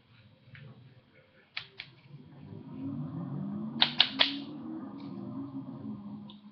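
Hands clapping or tapping against each other while signing: two sharp taps about a second and a half in, then three quick, louder taps around four seconds in. A faint low voice-like murmur runs under the middle part.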